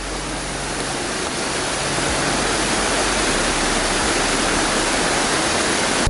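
Water of a small creek cascade pouring over a rock ledge between ice and snow: a steady rushing that grows a little louder.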